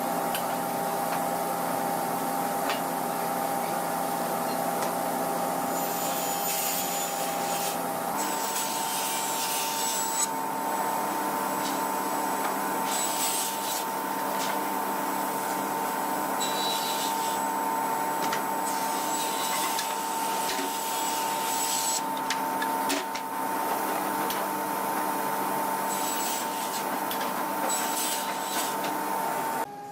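Electric power tool motor running steadily, with a rubbing sound of the tool working wood; the hum steps up slightly in pitch about eight seconds in.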